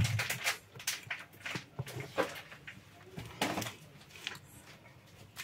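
Metal knife spreading chocolate icing over a cake: irregular soft scrapes and light taps of the blade against the cake and its plate.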